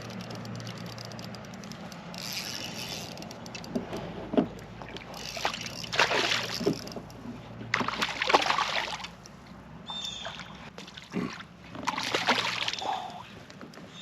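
Hooked largemouth bass thrashing and splashing at the water's surface in several bursts as it is played in, over a low steady hum during the first half.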